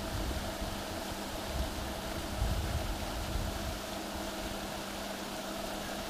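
Steady mechanical hum holding a few constant tones, with irregular low rumbles underneath.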